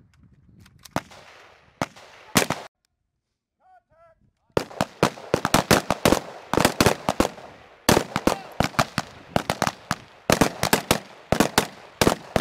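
HK G36 5.56 mm assault rifles firing on a range. Three separate shots come in the first couple of seconds, then after a short pause a long run of rapid shots from several rifles, overlapping and irregular.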